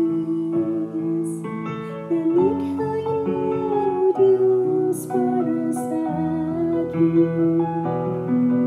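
A woman singing a slow worship song with held, gliding notes over a backing track of guitar and piano.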